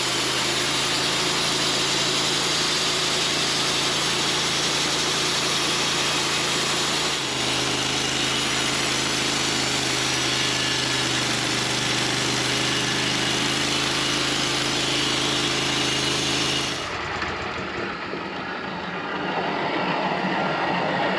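Sawmill engine running under load while the blade cuts a slab of bark off a locust log, a steady hiss of sawing over the engine drone. About seventeen seconds in the sawing noise stops abruptly as the cut ends, and the engine runs on more quietly.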